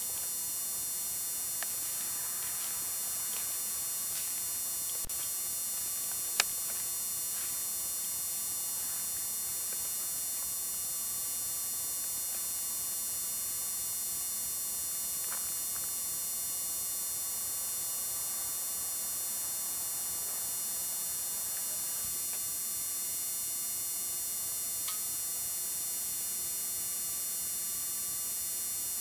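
Steady hiss and high whine of an old camcorder's own recording noise, with a faint steady mid-pitched tone, a few small clicks and one sharp click about six seconds in.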